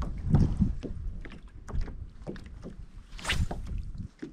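Small waves lapping and slapping against a fishing kayak's hull, with irregular light knocks and taps. A brief hissing rush comes about three seconds in.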